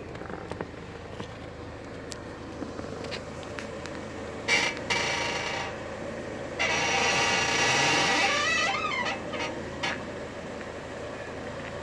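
Acura TSX suspension squeaking as the steering wheel is turned, over the engine's idle: a squeak about four and a half seconds in, a longer, louder one about six and a half seconds in, then a few gliding squeals. The owner thinks the squeak comes from the struts and that they need more grease.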